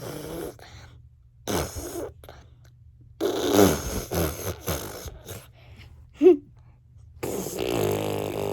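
A young girl making sputtering, buzzing mouth noises that sound like a lawnmower: several short bursts, then a long steady buzz starting about seven seconds in.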